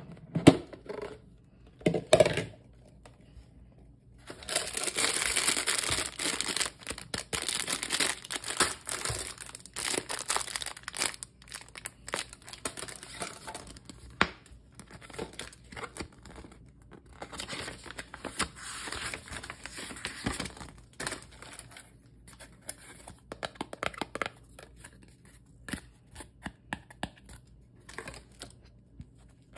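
Wrapping on a giant surprise egg being torn open and crumpled by hand, in two long crinkling stretches, with scattered rustles and clicks between and after. A few sharp knocks come near the start.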